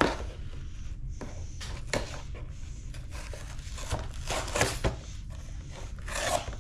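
Cardboard backing card and plastic blister packaging of a die-cast monster truck toy being torn open and crinkled by hand, in scattered bursts of tearing and crackling.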